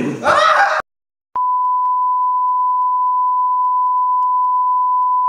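An edited-in electronic bleep: one steady, pure high tone held unbroken for several seconds. It comes in about a second and a half in, after a short loud noisy outburst and a moment of dead silence.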